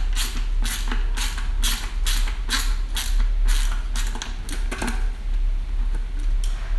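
Ratcheting bit screwdriver clicking, about two clicks a second that thin out near the end, as it backs out a seized disc-rotor bolt stub from a bike hub through a slot cut into the stub.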